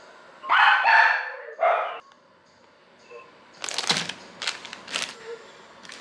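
Three short, loud calls in quick succession, then four sharp knocks of a knife on a wooden cutting board as dates are cut.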